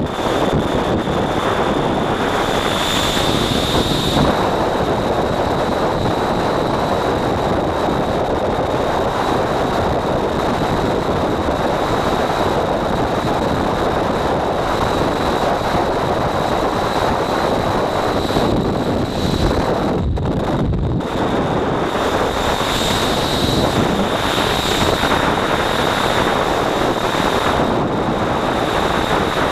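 Freefall wind buffeting a skydiver's helmet-mounted camera microphone: a loud, steady rush with a thin high whistle held over it.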